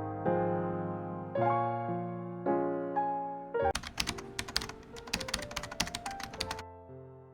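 Soft piano music with a slow run of chords. About three and a half seconds in, a rapid run of sharp clicks like typing on a computer keyboard plays over it for about three seconds, then stops and the chords go on.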